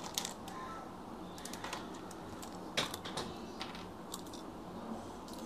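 Light clicks and taps from a soldering iron handle and its tip cartridges being handled on the bench while a tip is swapped. The clicks are scattered and irregular, and the sharpest comes about halfway through.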